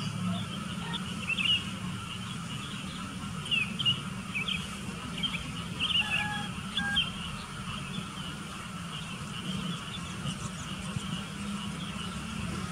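Sooty-headed bulbuls chirping: many short, quick notes scattered throughout, with a couple of brief whistled notes about halfway through. A steady low hum runs underneath.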